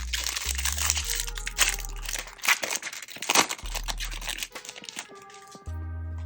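Foil wrapper of a baseball card hobby pack being torn open and crinkled, a dense crackle with sharp snaps that dies away about five seconds in. Background music with a low bass line plays underneath.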